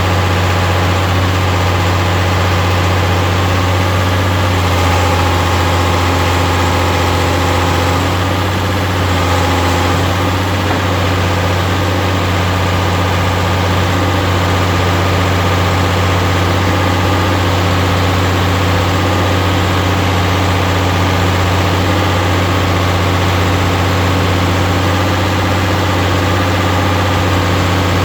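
Farmall 706 tractor engine idling steadily.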